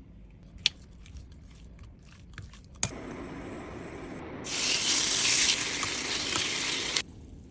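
Water tap turned on with a click, running in a steady stream that grows much stronger partway through, then shut off abruptly near the end. A few small clicks and knocks come before it.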